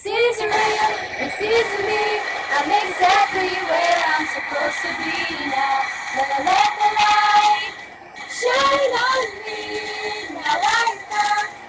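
Two girls singing a pop ballad together in unison, with music playing along; the singing pauses briefly about two-thirds of the way through.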